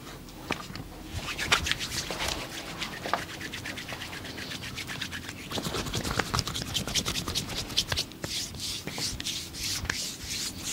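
Hands scratching and rubbing over a person's body in a scratching massage, many quick strokes a second, easing briefly about eight seconds in and then going on.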